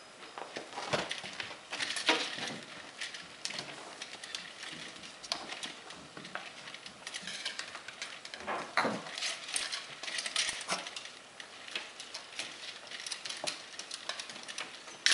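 Kittens playing: irregular light taps, clicks and scrabbling, a few louder knocks among them.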